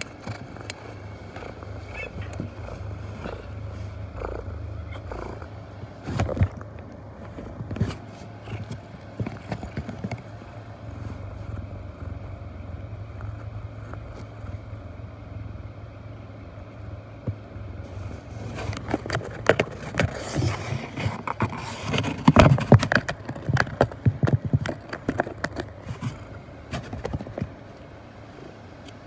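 Knocks, scratches and rustles on a cardboard box right by the microphone, thickest and loudest in the second half, over a steady low rumble.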